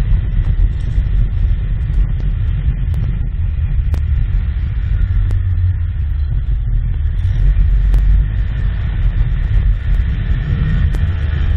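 A vehicle's engine running steadily with a deep, low rumble, with a few sharp ticks over it.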